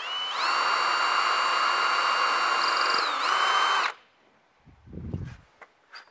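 Cordless drill boring a pilot hole into a wooden board: the motor spins up to a steady whine, dips briefly in pitch near the end of the run, and stops after about four seconds. A dull low thump follows about a second later.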